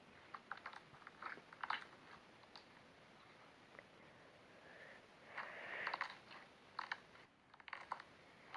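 Slime being pressed and squeezed: faint sticky clicks and crackles, turning into a denser, louder squishing about five seconds in.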